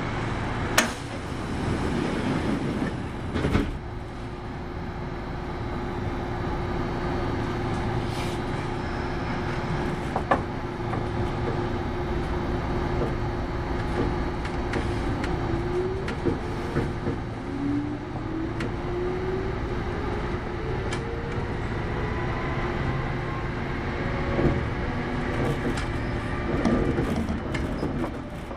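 Running noise of a Kintetsu 8810 series electric train, heard from inside the car: a steady rumble with a few sharp knocks from the rails. In the second half, a motor whine climbs in pitch as the train speeds up.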